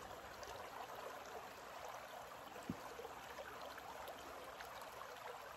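Creek water running over rocks: a soft, steady rush with faint trickling, and a single small knock about two and a half seconds in.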